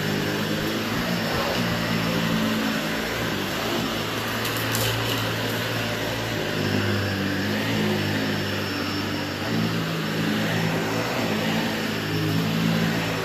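Dyson upright vacuum cleaner running steadily while it is pushed back and forth over a thick area rug and carpet, its motor noise carrying a low hum that shifts slightly in pitch as it moves.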